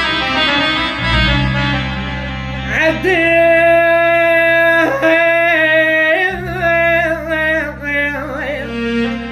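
Iraqi sung lament in the mawwal style: a long, wordless, ornamented melody line, with notes that slide up and are held, over a steady low drone.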